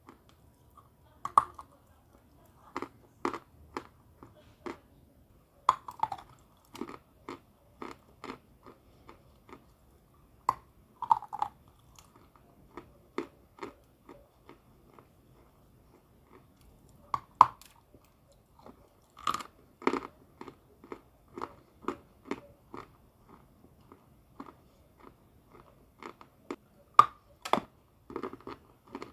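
Chalk being bitten and chewed close to the microphone: a loud crisp snap every few seconds as a new piece is bitten off, each followed by a run of softer, quicker crunches as it is chewed.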